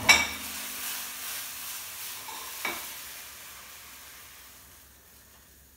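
Pasta sizzling in oil in a frying pan, with a sharp clack right at the start as a plate is set down on the counter and a single knock about two and a half seconds in. The sizzle fades away steadily as the pan is lifted off the flame and tipped over the plate.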